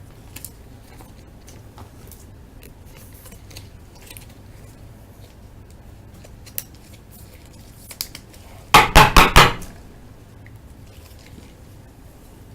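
Trading cards and pack wrappers being handled on a table, with faint scattered clicks and rustles. About nine seconds in comes a quick clatter of four or five sharp knocks within about a second.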